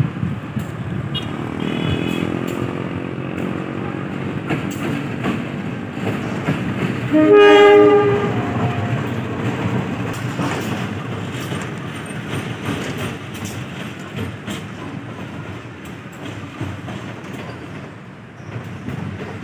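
Diesel locomotive running past at close range with a steady engine rumble, and wheels clacking over the rail joints. Its horn sounds one loud blast of about a second, about seven seconds in.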